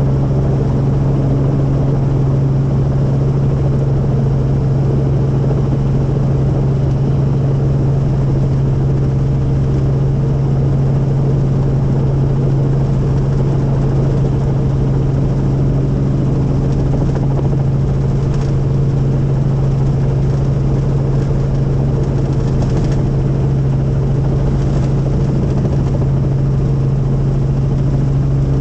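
Helicopter engine and rotors running, heard from inside the cabin as a loud, steady drone with a constant low hum.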